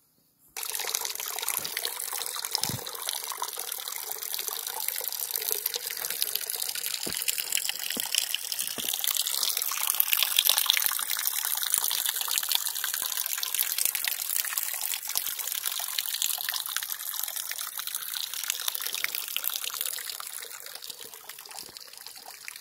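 Rushing water, like a stream or small waterfall: a steady, loud, hissing rush that starts abruptly about half a second in and eases a little near the end.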